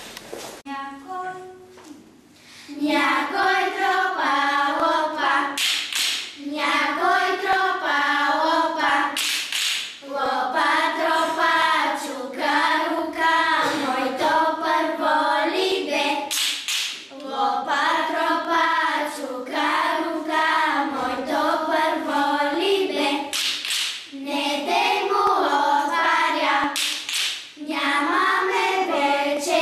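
A group of young girls singing a Bulgarian folk song together, starting a few seconds in, with occasional sharp clacks from the wooden spoons they play as percussion.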